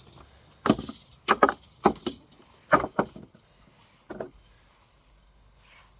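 A cheap plastic hairdryer being smashed apart: a run of about eight sharp blows, some in quick pairs, over the first four seconds, then they stop.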